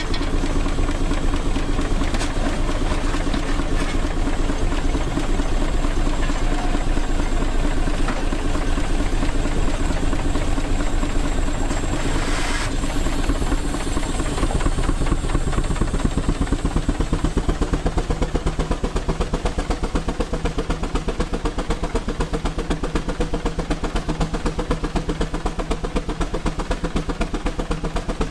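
Case single-cylinder steam traction engine running on the belt, its exhaust chuffing in a rapid, even beat as the flywheel turns. There is a brief hiss of steam about twelve seconds in, and the beat stands out more clearly in the second half.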